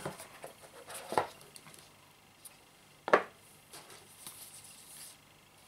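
Cardboard phone box being opened and handled on a table: a few light knocks and taps, the sharpest about three seconds in, then a soft rustle.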